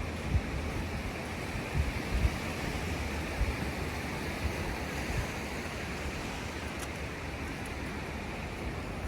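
Ocean surf washing steadily, a continuous hiss with wind on the microphone. A few brief low thumps come in the first few seconds.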